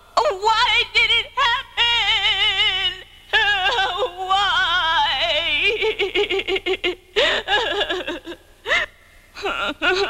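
A cartoon lamb's high, childlike voice laughing in long, wavering, sing-song giggles, with a short break about three seconds in and a lower, choppier run of laughter in the second half.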